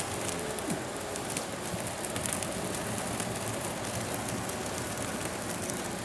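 Wood-fuelled signal fire burning, a steady hiss with many small crackles; the fire has warmed up and is burning faster.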